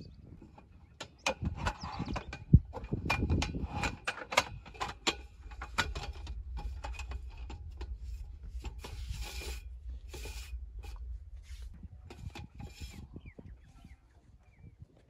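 Irregular knocks, clicks and rubbing over a low steady rumble, busiest in the first few seconds with one sharp louder knock, thinning out near the end.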